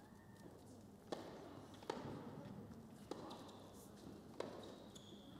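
Tennis rally on an indoor hard court: four sharp pops of racket striking ball, about a second apart, with short high squeaks of shoes on the court in the second half.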